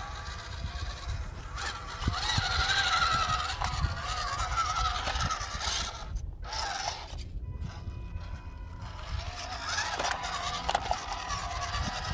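WPL C24 KM RC crawler's electric motor and gear train whining, rising and falling in pitch with the throttle as it crawls over tree roots. The whine is loudest about two to four seconds in and cuts out briefly twice near the middle.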